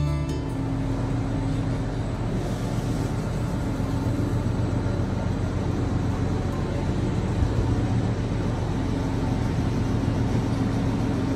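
Steady low machinery hum and rumble with a continuous rushing noise, the ambient sound of ships and lock equipment.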